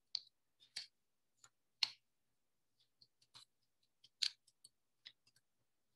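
Scattered light taps and clicks, irregular and a second or so apart, from an ink pad being dabbed along the edges of a paper element.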